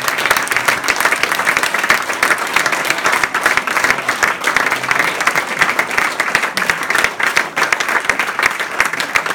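Audience applauding: dense, steady hand-clapping from a roomful of children and adults, with some sharp claps close by.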